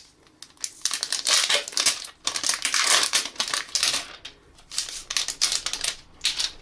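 Plastic packaging crinkling and rustling as it is handled, in irregular runs of crackles that come and go.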